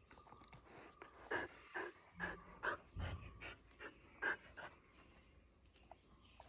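Dog panting and huffing in a quick run of short breaths, about two or three a second, during rough play, mainly through the middle few seconds.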